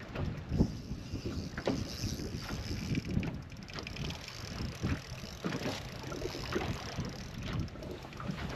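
Small waves slapping and splashing against a bass boat's hull in irregular knocks, with wind buffeting the microphone.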